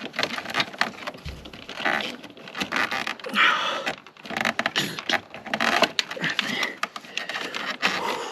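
Hands feeding a windshield washer hose through a car's engine bay: irregular scraping, rustling and light clicks of plastic hose and trim.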